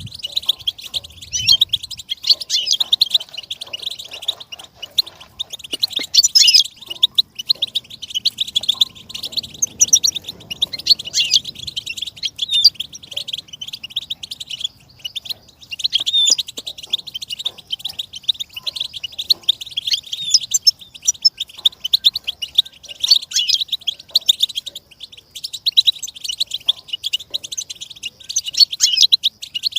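Goldfinch singing: a fast, unbroken stream of bright twittering chirps and trills, with a short lull about halfway through.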